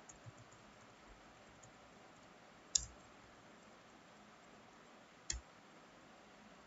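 Two sharp computer mouse clicks about two and a half seconds apart, with a few faint ticks near the start, over low steady room hiss.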